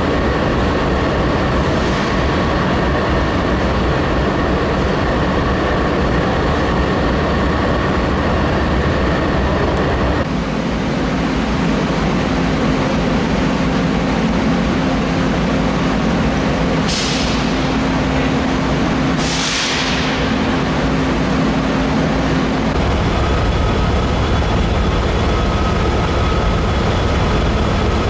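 Amtrak GE P42DC passenger diesel locomotives idling with a steady, loud engine drone whose note changes about ten seconds in and again near the end. Two short hisses of air come a little past the middle.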